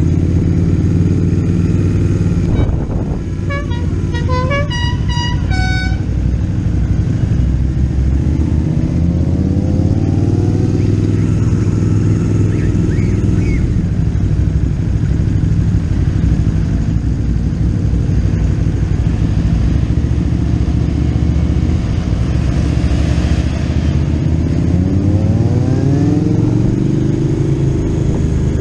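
Motorcycle engine running under way, rising in pitch twice as it speeds up. A run of short horn toots comes a few seconds in.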